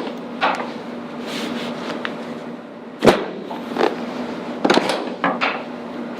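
Sharp knocks and clicks of a chiropractic low-back and hip adjustment, with the patient lying face down and a knee bent. The loudest comes about three seconds in, with a quick cluster a little later, over a steady low hum.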